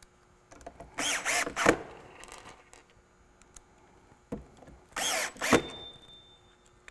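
Cordless drill/driver driving 1-inch screws through metal leg mounting plates into a cabinet's base. It runs in two short runs, about a second in and about five seconds in, each made of a few quick pulses.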